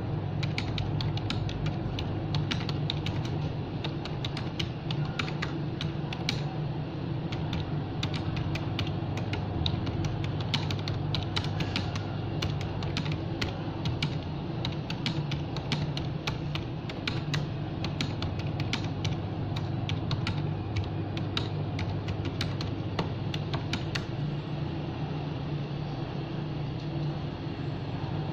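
Rapid light clicks in quick runs, like typing, over a steady low hum; the clicks thin out in the second half and stop about 24 seconds in.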